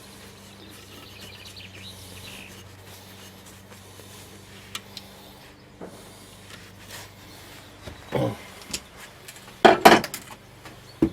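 Workshop handling sounds over a faint low hum: scattered metallic clinks and knocks of tools and parts, growing louder, with a loud cluster of knocks about ten seconds in.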